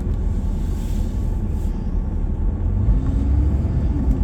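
Vehicle engine and road noise heard from inside the cab while driving: a steady low rumble.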